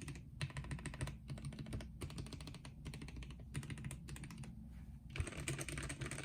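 Typing on a Gamakay K66 mechanical keyboard with freshly lubed Gateron Yellow linear switches and lubed stabilizers: a fast run of soft key clicks and bottom-outs, broken by a few brief pauses.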